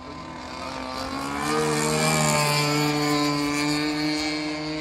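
Moki 30cc engine of a 2-metre RC Chipmunk model plane running in flight. Its note rises in pitch and grows louder about a second in, is loudest through the middle, then eases slightly near the end.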